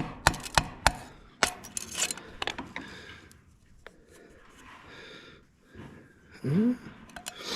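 Steel screwdriver clicking and scraping against a cast-iron cylinder sleeve in a Ford 8N tractor engine block as the sleeve is pried loose. A quick run of sharp clicks comes first, then scraping that dies down midway, then a brief rising grunt and a few more clicks near the end.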